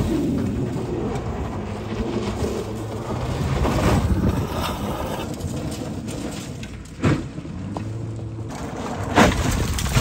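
Acura TL's V6 engine revving and changing pitch as the car slides on loose gravel, with tyres churning and spraying stones. There is a sharp thud about seven seconds in and another just after nine.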